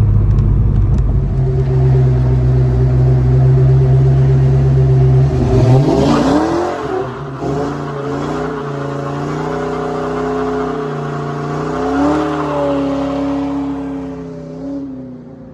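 Ford Mustang GT's 5.0 (302) V8 with Flowmaster exhaust running at a steady cruise, then revving up as the car accelerates about six seconds in, its pitch climbing and shifting before easing off and fading near the end.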